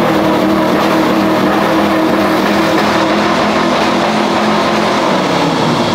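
A car's engine held at high revs, loud and steady, with the pitch dipping slightly near the end.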